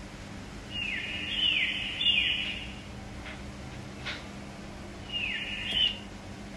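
Recorded dolphin whistles played through a laptop speaker: three quick downward-sweeping whistles in a row, then a pause with a couple of faint clicks, then one more whistle near the end.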